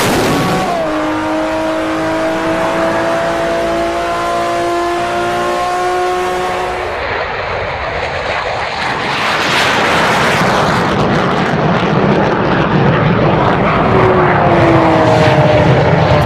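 A vehicle engine pulling hard, its pitch rising slowly for several seconds. From about eight seconds in a louder, noisier rush takes over, and near the end a second engine tone slides down in pitch.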